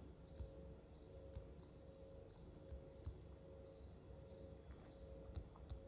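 Faint, irregular clicks of a stylus tapping on a tablet's glass screen during handwriting, over a faint steady hum.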